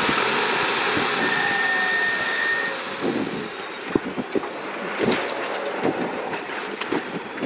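Rally car engine at full throttle, heard from inside the cabin. About three seconds in the engine note drops away as the car lifts off and brakes for a sharp left, and scattered knocks and clunks follow.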